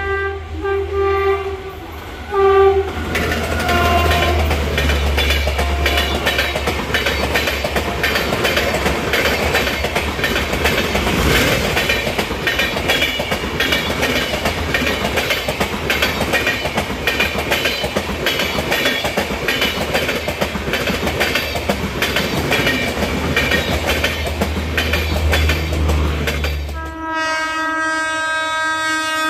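Passenger train running through a station at speed without stopping. Its horn sounds in short blasts at the start, the coaches' wheels then clatter rapidly over the rail joints with a heavy rumble for more than twenty seconds, and the horn sounds again in a longer note near the end.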